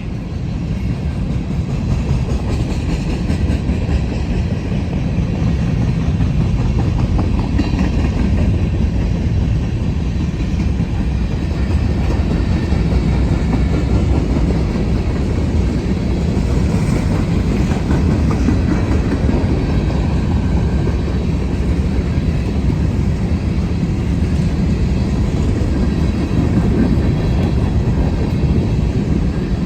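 CSX grain train's loaded hopper cars rolling past at close range: a steady rumble and clatter of steel wheels on the rails, building in the first second or two and then holding.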